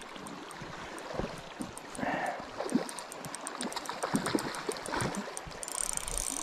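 River current flowing steadily over rocks, with scattered light clicks and knocks from a spinning reel being handled, and a brief high hiss near the end.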